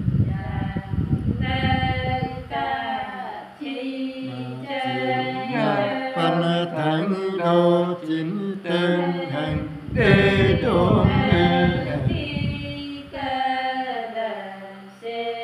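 A man singing unaccompanied in a slow chant-like style, with long held notes and sliding pitches broken by short pauses. A low rumbling noise runs under the voice at the start and again from about ten seconds in.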